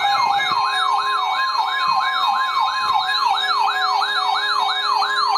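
Electronic alert siren: a rapid rising sweep repeating about three times a second over a steady tone. The sweeps cut off suddenly at the end.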